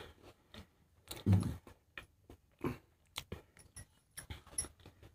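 Someone chewing a mouthful of dry biscuit: faint, irregular crunches and mouth sounds, with one louder, deeper mouth noise about a second and a half in.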